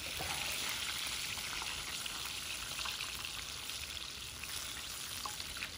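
Chicken legs deep-frying in oil in a cast iron skillet: a steady sizzle with fine crackling.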